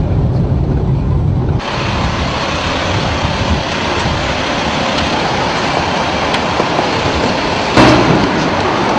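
Low road rumble inside a moving van, which cuts off after about a second and a half to steady city street traffic noise. A brief, louder rush of noise comes near the end.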